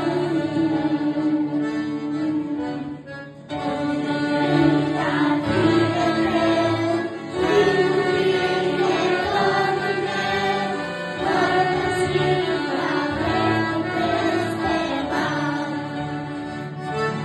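A group of young children singing a Christian praise song together, accompanied by acoustic guitar, with a brief drop in level about three seconds in.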